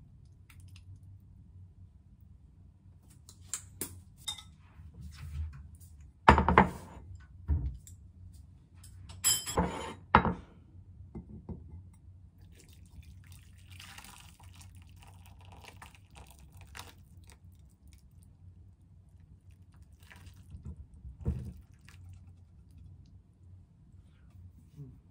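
Kitchen handling sounds over a low steady hum: dishes and a pot knocking and clattering on the counter, with the loudest knocks in the first ten seconds. About halfway through comes a soft stretch of soup and udon noodles being poured from a pot into a bowl, then one more knock a few seconds before the end.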